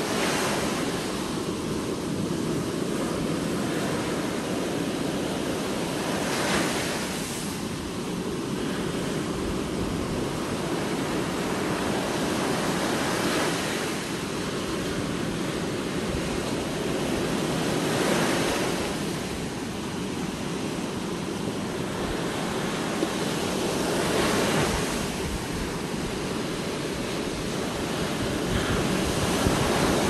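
Rough surf breaking on a sandy beach: a constant wash of foaming water, swelling each time a wave crashes, about every five to six seconds.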